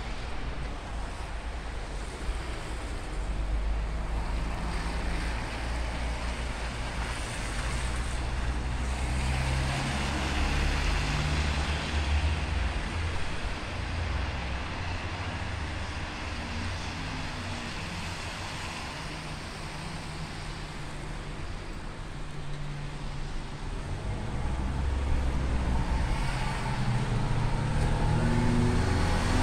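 Road traffic on a wet street: car engines and tyres on wet asphalt, swelling as vehicles pass and growing louder near the end as one approaches.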